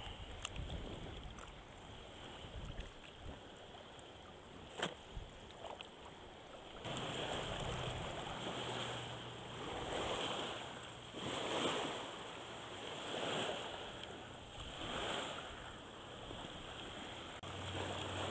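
Legs wading through shallow river water: rhythmic swishing surges about every second and a half, starting about seven seconds in. Before that, quieter lapping water with a few small knocks.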